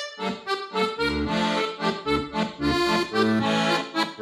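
Instrumental break music: a quick run of short repeated melody notes, with a bass line coming in about a second in.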